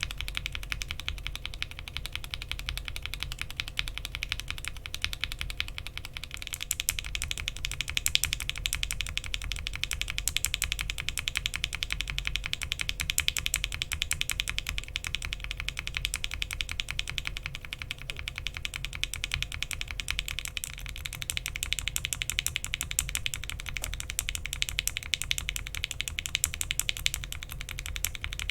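Continuous fast typing on a mechanical keyboard with Alpaca linear switches fitted with UHMWPE stems. The switch build changes twice: to Gateron Ink tops about six seconds in, and to Gateron Milky tops about twenty seconds in.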